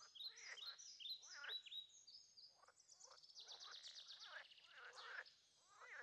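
Faint chorus of frogs and birds calling at a pond: many quick, falling chirp-like calls overlap, and a fast high trill runs through the middle.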